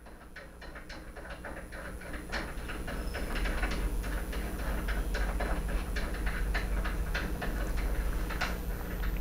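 Irregular metallic clicks and rattles, a few a second, from a reloading die being threaded and handled into a reloading press, over a low rumble that slowly grows louder.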